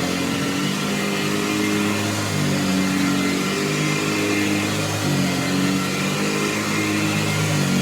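1935–36 Hoover Model 475 upright vacuum cleaner running, its steady motor hum shifting in pitch a few times.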